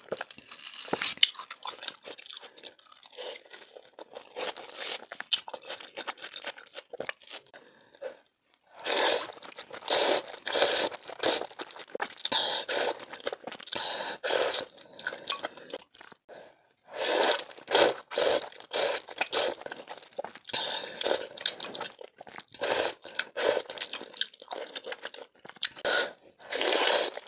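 Close-miked eating: food being bitten and chewed with crunching, in runs of a few seconds, fainter for the first stretch and louder after a short pause about 8 seconds in, with another pause about 16 seconds in.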